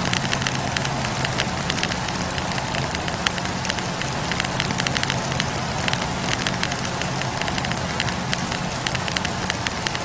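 Wood fire burning in a campfire, crackling with many small rapid pops over a steady hiss, with a low steady hum underneath.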